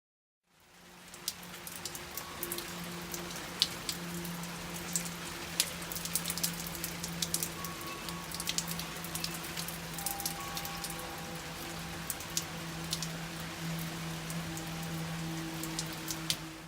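Steady rainfall with many individual drops tapping sharply on a hard surface, fading in about half a second in and cutting off abruptly at the end. A steady low hum runs underneath.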